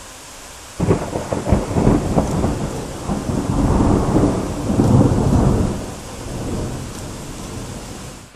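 A close thunderclap: after a steady hiss of rain, a sudden crackling crack about a second in, then a rolling rumble that fades over the next several seconds.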